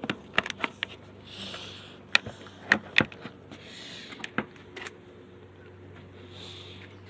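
Scattered clicks and knocks of a plastic headlight assembly and body parts being handled and set into place on a car's front end, with a few short scraping rustles and a faint steady hum underneath.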